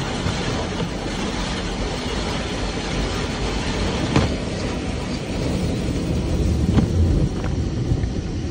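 Automatic tunnel car wash heard from inside the car: a steady rushing of water spray and cloth brushes washing over the car body and windshield, with a couple of short knocks as the brushes strike the car.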